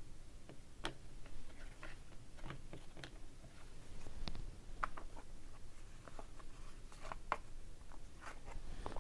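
Faint, scattered clicks and light rustles of trading cards being handled, tapped and slid against each other.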